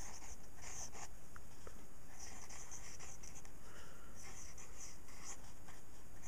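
Pencil lead scratching on paper in short, irregular strokes, over a steady faint background hiss.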